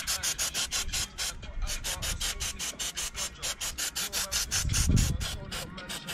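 Aerosol chain lube sprayed onto a motorcycle drive chain, hissing in rapid short pulses about five times a second, with a dull low thump about five seconds in.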